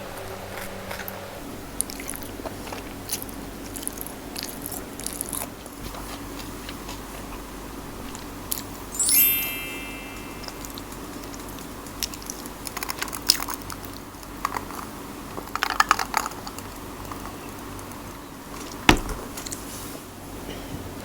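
Close-up sounds of a person biting and chewing food (squid sisig with rice), with scattered clicks from utensils. About nine seconds in there is a brief high squeak that drops in pitch, and a sharp click comes near the end.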